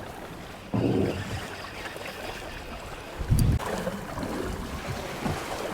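Wind buffeting the microphone on a boat in rough, wind-driven waves, with water washing against the hull. Two stronger low rushes come about one second in and again just after three seconds.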